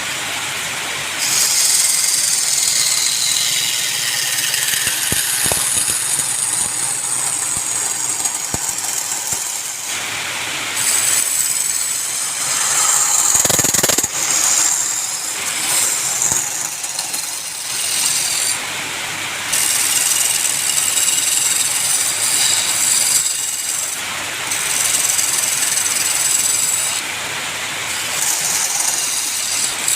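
Woodturning gouge cutting a spinning workpiece on a wood lathe: a loud, hissing scrape in long passes, broken by short pauses where the tool lifts off.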